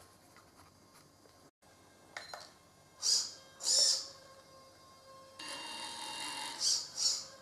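Tamiya CR-01 RC crawler's electric drive and steering servos: two short whirs about three and four seconds in, then a steady motor and gear whine from about five and a half seconds as it drives, with two louder whirs near the end.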